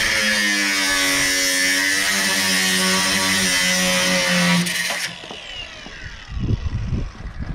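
Angle grinder cutting into a steel roof-rack rail: a loud grinding hiss over the motor's whine for about five seconds. It cuts off suddenly and the disc winds down with a falling whine, then a few low thumps come near the end.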